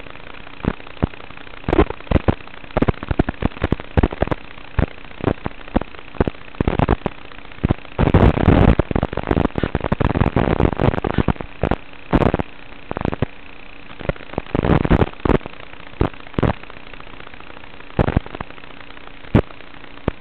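Radio static on the audio channel of an analog FPV video link: a steady hiss with a faint hum, broken by many irregular crackles and pops that bunch up for a few seconds around the middle, where the video signal breaks up.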